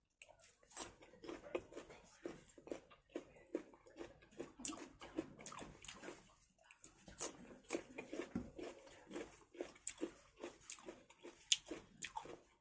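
A person chewing chilli chicken and rice close to the microphone: a quick irregular run of wet mouth smacks and clicks, several a second.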